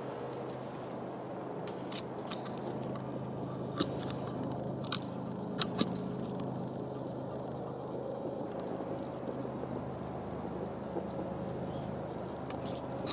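Hedgehog crunching cat biscuits, a few separate sharp crunches over a steady low hum.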